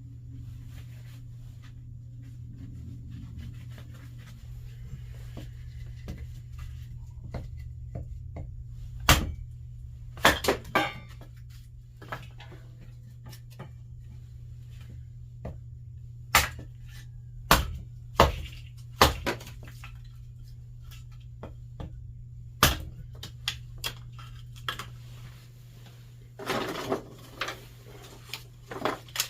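Hard objects being handled, with scattered clanks and knocks, some in quick pairs, over a steady low hum.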